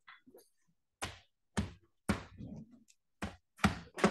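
Irregular knocks and thumps, about six sharp hits over four seconds.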